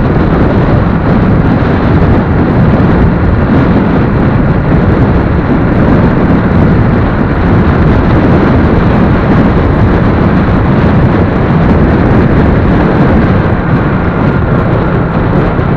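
Steady, loud rumble of riding a motorcycle at speed: wind buffeting the microphone, with the motorcycle's engine and tyre noise underneath.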